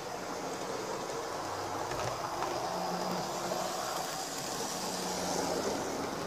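Heljan OO gauge Class 47 model diesel locomotive running on track: its motor hum and wheel noise on the rails, getting louder from about two seconds in as it passes close and peaking near the end.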